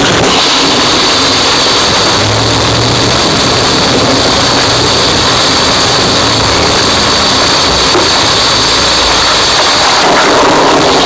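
Harsh noise wall: a loud, unbroken wall of dense distorted noise that holds steady with no rhythm or melody. A bright, hissing band high up sets in just after the start and fades about ten seconds in.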